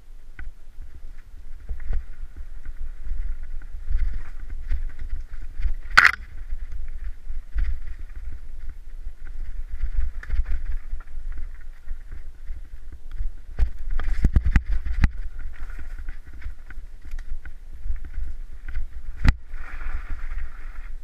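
A mountain bike running fast down a rough, rocky dirt trail, heard from a helmet camera: steady rumble and rattle from the tyres and frame, with wind buffeting the microphone. Sharp knocks come about six seconds in and again near the end, and a burst of clatter comes about two-thirds of the way through.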